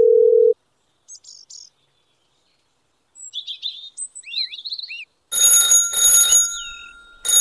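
A telephone dial tone ends about half a second in; after a short pause birds chirp, then a phone ringtone starts a little after five seconds in, ringing in repeated bursts, the loudest sound here.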